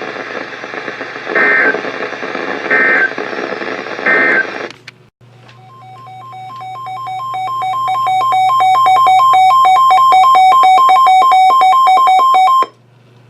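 NOAA Weather Radio broadcast over a hiss of radio static: three short screeching bursts of the Emergency Alert System's digital SAME code, about a second and a half apart. After a brief drop-out, a pulsing electronic alert tone swells up over a few seconds, holds, and cuts off abruptly.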